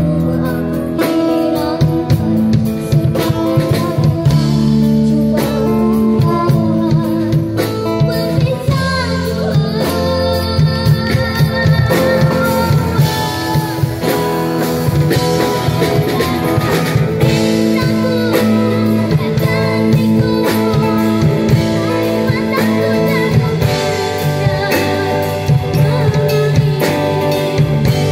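A young girl singing a Malay song through a microphone and PA, backed by acoustic guitar and a drum kit.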